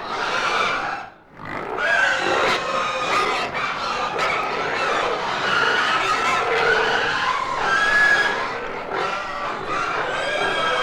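Piglets in a sty squealing and grunting, waiting to be fed, with a short drop in level about a second in.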